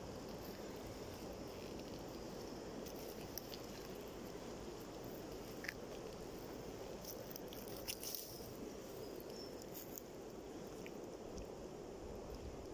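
Breeding chorus of many common frogs (Rana temporaria) calling together at a spawning pond, a steady low purring croak, with a few faint crackles of steps in dry grass near the middle.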